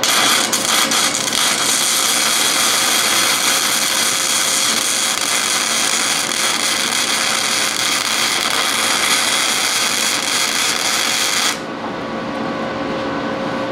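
Arc welding a nut onto a broken stud in an exhaust manifold, to give a grip for backing the stud out: a steady crackling arc that stops suddenly about two seconds before the end, leaving the hum of a portable air conditioner.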